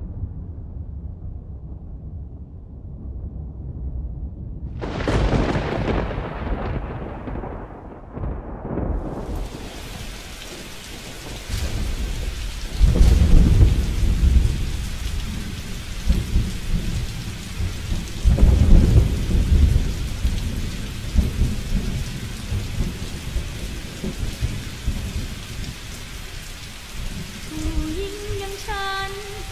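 Thunderstorm: a low rumble at first, then rain builds from about five seconds in to a steady downpour, with two loud rolls of thunder about thirteen and nineteen seconds in. A melody begins near the end.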